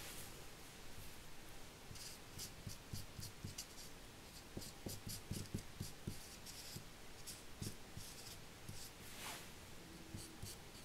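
Alcohol marker drawn in short, quick strokes over a thin die-cut paper word, colouring it black: faint scratching in clusters of strokes.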